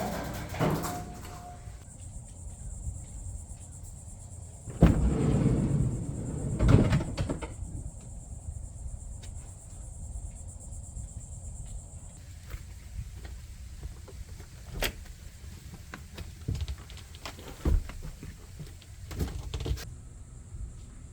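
Bed frame being shifted around inside a van: a two-second run of heavy bumping and scraping about five seconds in, then scattered light knocks and clicks.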